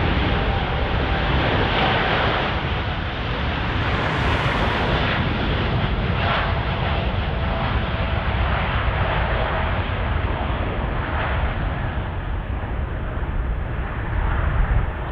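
Jet airliner engines close by, a loud, steady rush and rumble with a faint whine that slowly falls in pitch.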